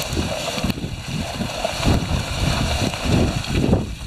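Wind buffeting the camera microphone outdoors, an uneven low rumble that swells and falls in gusts.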